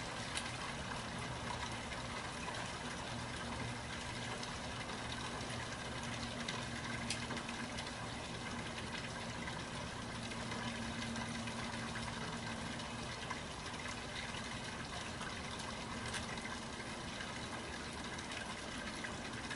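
Steady rushing background noise with a low steady hum under it and a few faint clicks.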